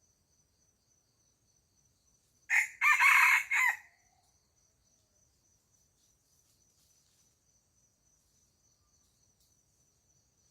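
A rooster crows once, a single cock-a-doodle-doo of about a second and a half, starting about two and a half seconds in. A faint, steady, high insect trill runs underneath.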